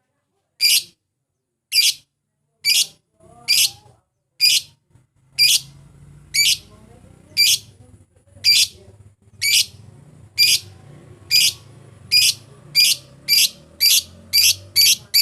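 Lovebird giving short, shrill chirps, about one a second, coming faster toward the end. It is a lure call of the kind played to provoke a rival lovebird into singing.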